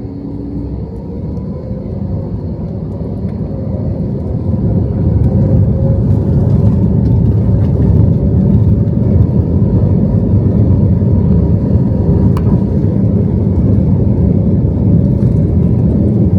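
Jet airliner engines heard from inside the cabin, growing louder over the first few seconds with a faint rising whine, then holding a steady loud rumble, typical of the engines spooling up to takeoff thrust.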